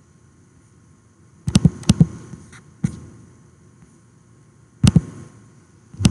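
Computer mouse clicking, mostly in quick double-clicks, four or five times with pauses of a second or more between.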